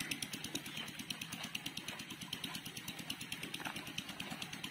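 A small engine idling with a fast, even beat.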